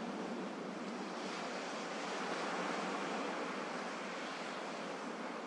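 Gentle sea waves washing on a shore: a steady hiss of surf that swells a little in the middle.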